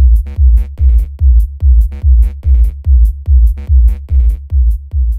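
Bass-boosted electronic dance music: a heavy low thump about three times a second with a synth melody above it, starting to fade out near the end.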